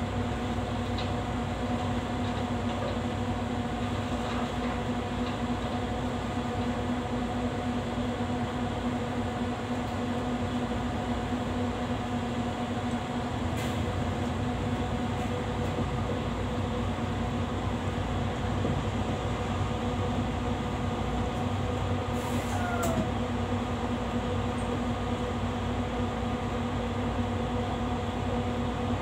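Steady mechanical hum inside a city bus standing in traffic, the bus's drivetrain and auxiliaries running at a constant pitch. A short squeak comes about three-quarters of the way through.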